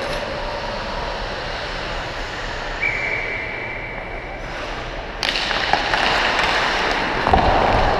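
Ice hockey on an indoor rink: a steady background hum, then about five seconds in a sudden louder rush of skate blades scraping the ice and sticks clattering as the faceoff is taken, with a sharp knock near the end.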